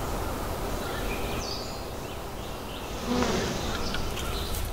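A bee buzzing, swelling louder about three seconds in as it flies close, with a few faint high chirps behind it.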